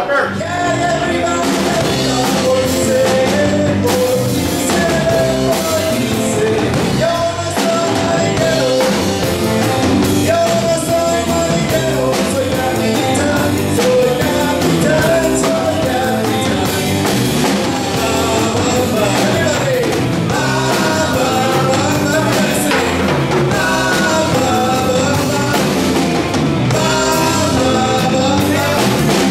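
Live rock band playing: a man singing into a microphone over electric guitar and a drum kit.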